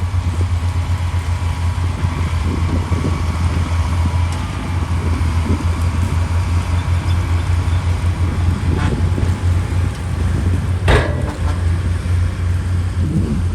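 Heavy diesel engine of an earthmoving machine running steadily with a low, fast-pulsing rumble. Two sharp clanks, the second louder, come about nine and eleven seconds in.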